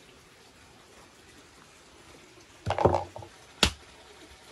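A brief rustle and clatter of handling, then one sharp chop of a hatchet striking a skinned cow head.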